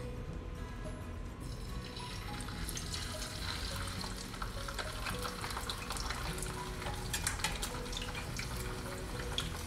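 Butterflied, vinegar-marinated milkfish sizzling in hot oil in a frying pan, with fine crackles. The sizzle builds about two seconds in as the fish goes into the oil. The fish was blotted dry with paper towel, so the oil does not spatter much.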